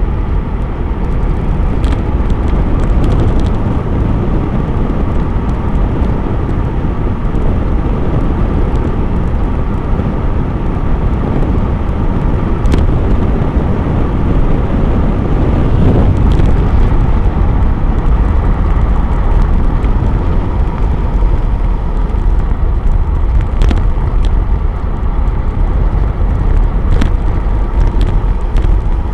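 Wind rushing over the microphone of a camera on a road bike descending fast, up to about 40 mph: a loud, steady rumble, with a few brief clicks.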